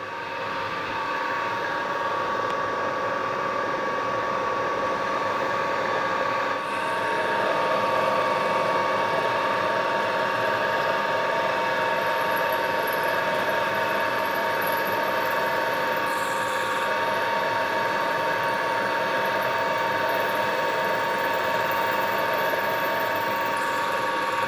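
Milling machine spindle running through its gearbox, a steady gear whine with several tones, as a drill bit in the spindle chuck bores horizontally into a casting. The machine comes up to speed at the start and gets slightly louder about six and a half seconds in.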